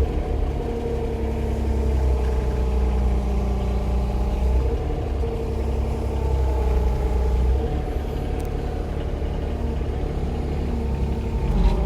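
Yanmar SV18 mini excavator's diesel engine running steadily, a low rumble with a steady hum over it.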